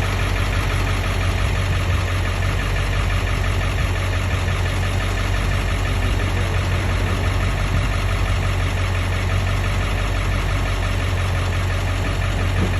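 Ford F-350 truck engine idling steadily.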